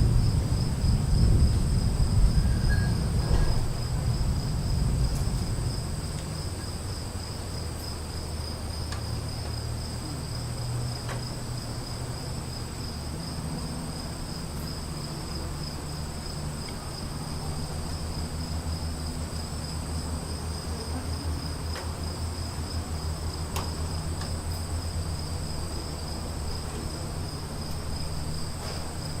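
A low rumble of thunder fades away over the first five seconds or so, under a steady high chirring of insects that runs on throughout.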